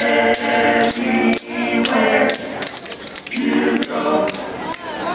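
Barbershop quartet singing a cappella in close four-part harmony: a long held passage, a short break, then another sung phrase.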